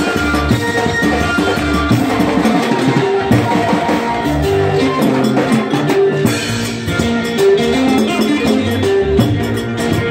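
Live band music with a drum kit playing a steady beat under a repeating line of short melodic notes.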